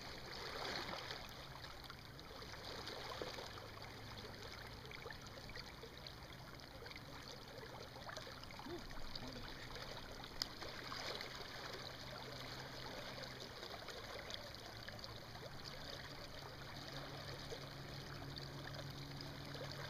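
River current flowing and rippling around a wading angler's legs, a steady watery rush. A faint low steady hum runs underneath and grows a little stronger near the end.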